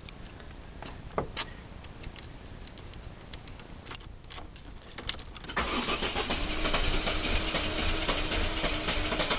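A few light clicks of key and ignition, then about five and a half seconds in the 2002 Mercedes A190's starter turns the engine over and it keeps going, pulsing steadily near the end. This is a start attempt on a car with an intermittent no-start fault that a new starter motor, fuel pump, cam sensor and crank sensor have not cured.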